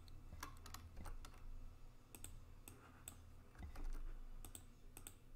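Faint computer keyboard typing: irregularly spaced key taps, as rotation values are entered, over a low steady hum.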